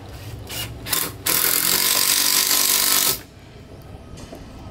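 A handheld electric power tool runs steadily for about two seconds, starting a little over a second in and cutting off sharply. A few light knocks of wood come just before it.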